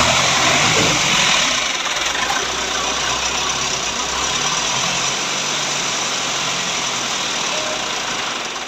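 A vehicle engine running at idle just after starting, a steady low drone under a strong hiss, dying away near the end.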